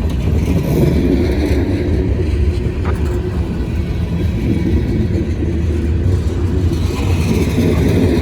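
Long freight train's cars rolling past in a steady low rumble, with a faint click about three seconds in.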